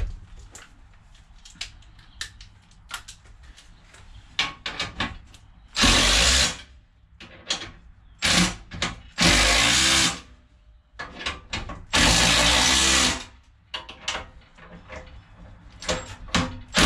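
Cordless drill/driver running in about five short bursts, driving nuts down onto carriage bolts to fasten a steel blower rack, with clicks and knocks of handling between them.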